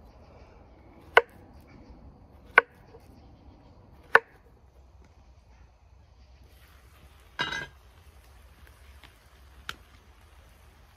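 Knife cutting plantain on a wooden cutting board: three sharp knocks of the blade meeting the board, about a second and a half apart. Later comes a short scraping rattle and then one lighter click.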